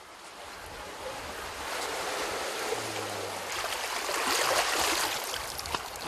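Sea surf washing over coastal rocks: a rush of water that builds, is loudest about four to five seconds in, and eases near the end.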